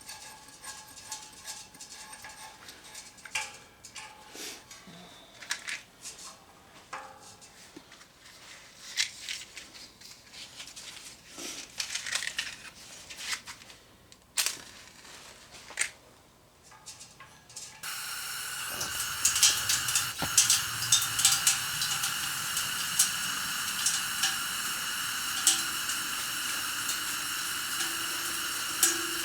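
Scattered light clinks and knocks of gear being handled. About two-thirds of the way in, a steady hiss starts suddenly and carries on, with an occasional click.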